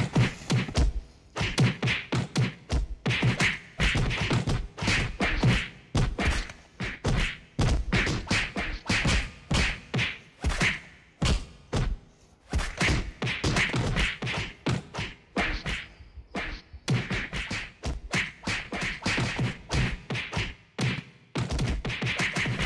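Cartoon fight-cloud sound effect: a rapid, continuous run of thumps and whacks like a slapstick brawl, with short breaks here and there.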